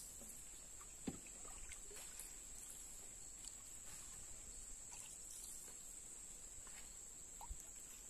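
Canoe being paddled through still water: faint splashes of the paddle and knocks against the hull, the sharpest about a second in and another near the end, over a steady high-pitched hum.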